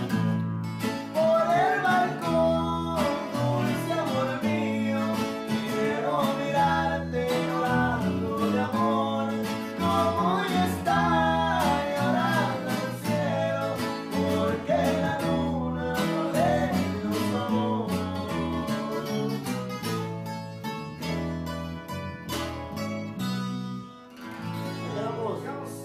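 Música campirana played by a small band: strummed acoustic guitar over a bass line, with a wavering melody line that sounds sung. The music dies down near the end.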